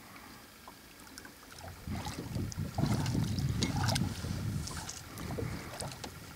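A hooked eel thrashing and splashing at the water surface beside a small boat, with low, rumbling wind buffeting on the microphone from about two seconds in and scattered small splashes and clicks.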